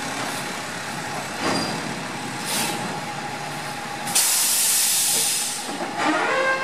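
New Way Mammoth garbage truck running at a standstill, with two short hisses of released air. About four seconds in comes a loud hiss of air lasting about a second and a half.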